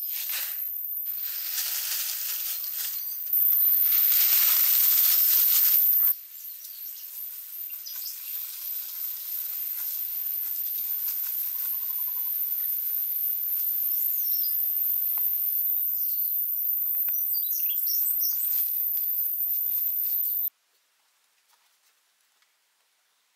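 Tropical forest ambience: a steady, high-pitched insect drone, louder for a few seconds near the start, with a few short bird chirps. It cuts off about twenty seconds in, leaving near silence.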